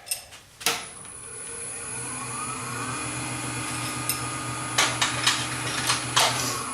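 Wood lathe switched on with a click, its motor spinning up with a whine rising in pitch over about two seconds and then running steady. Several sharp clicks or knocks come about five to six seconds in.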